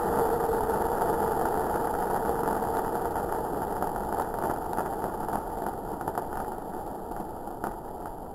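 A steady mechanical hum fading out gradually, with a few faint crackles near the end.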